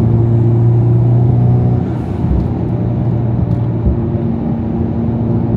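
Honda Civic Type R FL5's turbocharged 2.0-litre four-cylinder engine running at a steady cruise, heard inside the cabin as an even drone over road noise.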